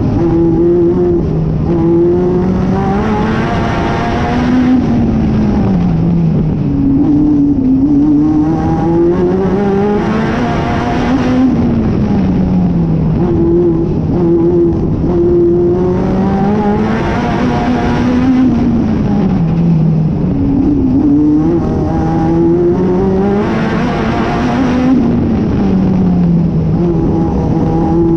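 Onboard sound of a National Hotrod race car's engine at racing speed. Its pitch climbs as the car accelerates and falls as it lifts off, four times in a row, about every seven seconds.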